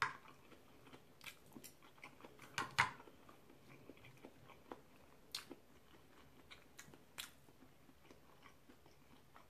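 A person chewing and biting food, faint, with scattered short crunchy clicks, the strongest about two and a half seconds in.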